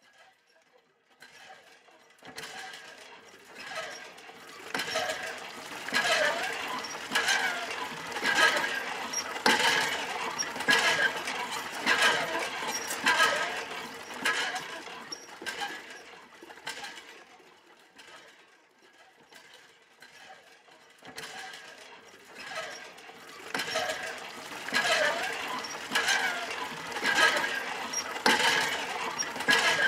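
Rhythmic mechanical clanking and squeaking of a hand-pumped railway trolley, about one stroke a second. It grows louder and fades away, then comes back loud a few seconds later.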